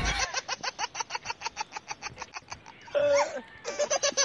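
Rapid laughter in short, even pulses, about six or seven a second, broken briefly about three seconds in by a short voiced sound before it picks up again.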